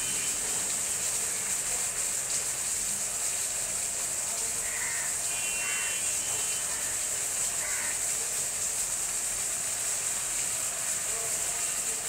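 A steady high-pitched hiss of outdoor ambience, with a few faint short bird calls about five and eight seconds in.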